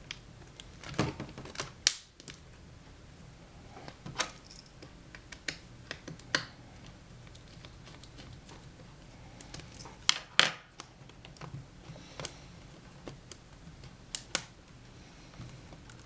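Small light clicks and taps of a screwdriver and screws being handled and put back into a laptop's screen assembly, scattered and irregular with a few louder taps.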